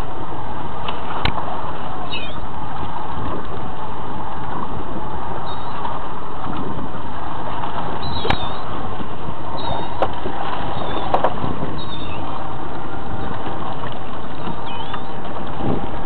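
Steady noise of a shrimp boat's engine running with wind and water, with a few sharp knocks over it.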